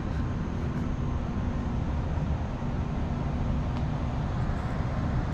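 Steady low rumble of a large indoor hall's ventilation, with a faint steady hum through it.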